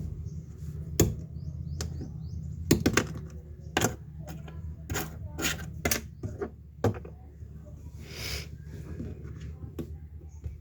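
Irregular clicks and taps of a screwdriver and small plastic phone parts being handled as a Realme C2 smartphone is taken apart, over a steady low hum.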